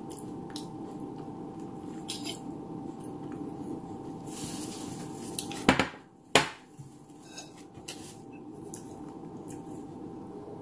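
A metal spoon clinking and scraping on dishes, with small clicks throughout. Two sharp knocks about halfway through, well apart from the rest, as dishes are handled and set down.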